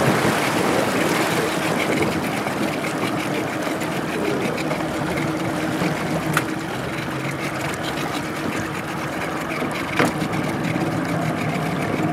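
Small tiller-steered outboard motor running slowly, with water washing along the jon boat's hull. A couple of sharp knocks come about six and ten seconds in.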